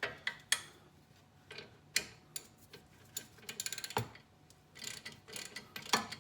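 Hand socket ratchet clicking as it works a bolt whose other side is being held, with separate sharp metal clinks and knocks of the tools; a quick run of ratchet clicks comes a little past halfway and more near the end.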